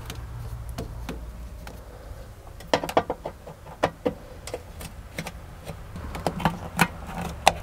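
Irregular clicks and knocks of a screwdriver working a hose clamp and of hands pulling a rubber air-intake hose off an air flow meter.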